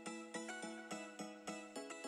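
Background music: a run of evenly spaced notes, about three a second.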